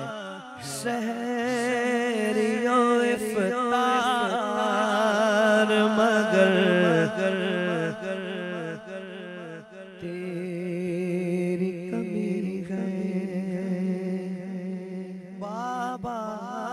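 A man's solo voice sings an Urdu naat in a slow, melismatic devotional style, with wavering ornamented notes over a steady low drone. The voice breaks off briefly about ten seconds in while the drone carries on, then starts a new phrase near the end.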